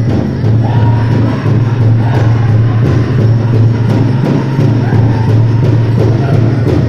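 Powwow music: a drum group striking a large drum in a steady beat, with voices singing over it.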